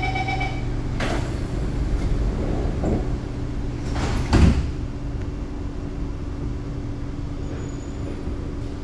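The last of a beeping door chime ends just after the start, then the train's sliding doors close, shutting with a heavy clunk about four seconds in. A steady low hum from the train runs underneath.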